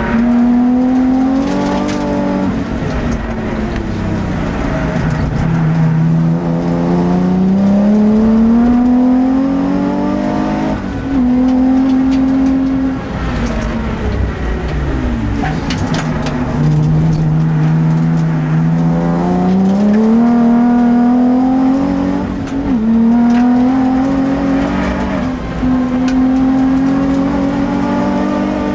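Twin-turbocharged race car engine at full throttle, heard from inside the car: its pitch climbs steadily through each gear, steps at the upshifts, and falls away when the driver lifts for corners, twice over. A thin high whine comes and goes on top.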